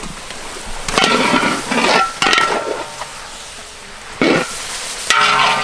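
Raw pork slices sizzling as they drop into hot oil and bubbling sauce in a wok, in loud surges over a steady frying hiss, with a metal spatula clinking against the pan. Music with held notes comes in near the end.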